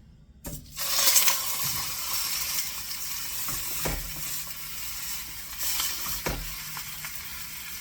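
Butterflied chicken laid skin side down into smoking-hot oil in a pan, starting to sizzle loudly about half a second in, then sizzling steadily as the skin sears. Two dull knocks sound under the sizzle.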